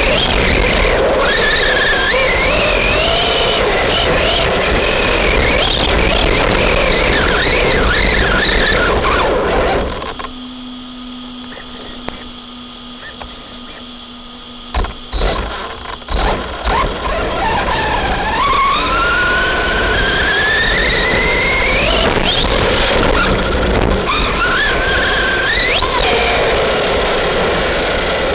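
RC basher truck's electric motor and drivetrain whining, rising and falling in pitch with the throttle over a steady rushing noise. About ten seconds in it drops much quieter for several seconds, with a few sharp knocks. Then the whine climbs again in long rising sweeps.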